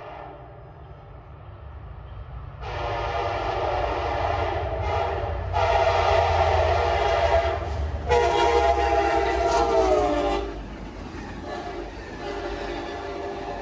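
CSX F40PH-3 locomotives leading a fast passenger-car train sound their horn for a grade crossing: a series of loud long blasts with one short one, the last blast falling in pitch as the locomotives pass. The low rumble and clatter of the passing cars follow.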